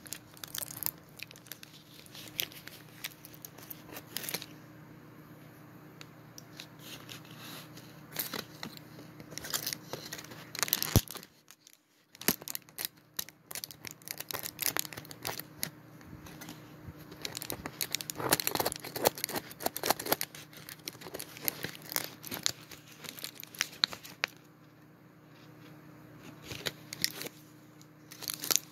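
Foil and plastic gum wrappers being crinkled and handled close up, in irregular bursts of crackling with quieter lulls and one sharp snap near the middle. A faint steady hum runs underneath.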